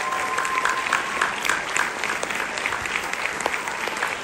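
Audience applauding: dense, steady clapping from a large crowd, with a high held cheer over it in the first second.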